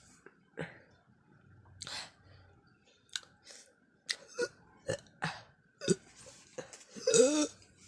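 A person making a string of short hiccup-like gulps and throat sounds, then a longer, louder retching burp about seven seconds in: mock vomiting sounds.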